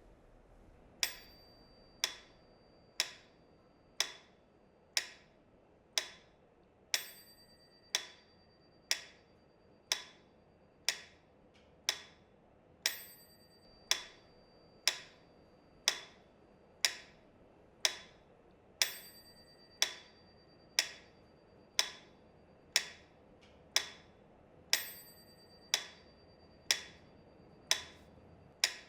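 Metronome clicking steadily at about one beat a second (around 60 bpm), some beats ringing brighter in a regular repeating pattern, as an accented beat.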